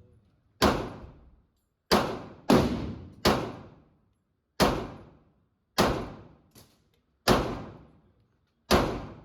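Glock 43X 9mm pistol firing eight shots at an uneven pace, roughly a second apart with two quicker pairs. Each sharp crack rings out and fades over about a second, and there is a fainter shot between the sixth and seventh.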